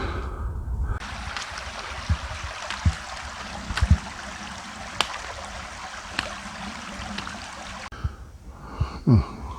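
Steady rushing of a stream flowing over rocks, with a few faint knocks. Low rumble of wind on the microphone at the start.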